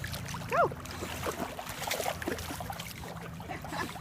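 An English bulldog splashing through shallow floodwater, with scattered small splashes and sloshing.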